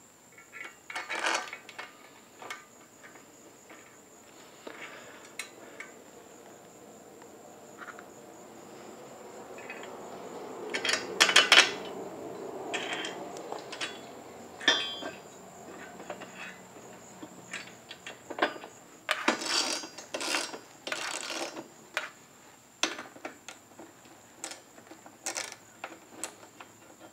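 Irregular metallic clicks, clinks and knocks of a hand wrench and steel luggage-rack parts being handled and bolted up, with louder clusters of clatter around a third of the way in and again past the middle.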